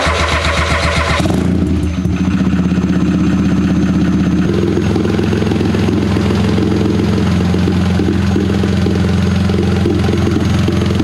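Turbocharged engine of a home-built off-road buggy starting with a sudden burst, catching within about a second and settling into a loud, steady idle.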